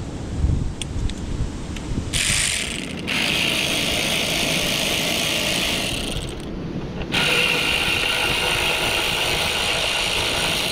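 Cordless electric ratchet running on a bolt in two long runs, with a short pause about six seconds in.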